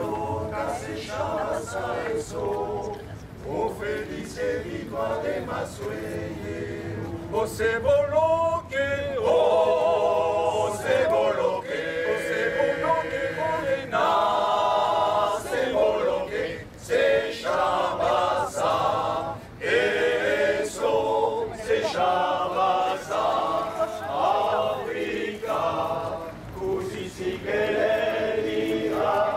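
Amateur choir of mostly male voices singing a cappella in parts, the voices holding chords together; the singing grows louder about eight seconds in.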